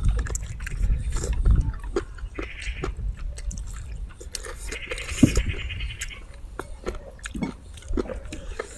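People eating: chewing, with many small clicks of food being picked up and eaten. Two brief high trilling sounds come in the background, one about two and a half seconds in and a longer one around five seconds in.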